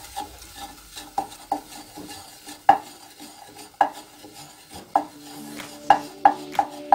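Wooden spatula stirring a butter, garlic and flour roux in a stainless steel saucepan, scraping the bottom and knocking against the side of the pan in short, irregular strokes.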